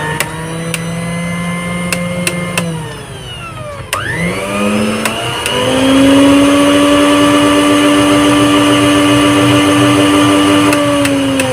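Philips mixer grinder's motor running with a steady whine, its shaft bushings freshly oiled with engine oil to cure a loud running noise. About three seconds in it winds down, then starts again and settles at a higher speed.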